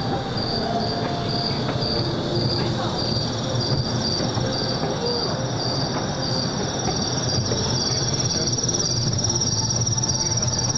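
Safari train running with a steady rumble and rattle. Insects chirp over it: one high chirp repeats about twice a second, and a higher, continuous trill joins about three seconds in.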